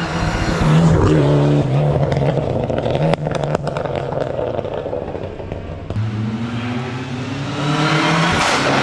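Hillclimb race car engine under hard driving, changing revs, with a cluster of sharp cracks a little after three seconds in, then rising steadily in pitch as it accelerates in the last few seconds.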